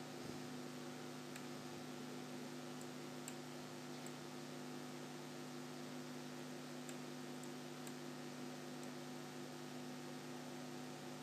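Quiet, steady electrical mains hum with a light hiss, and a few faint, sharp clicks scattered through.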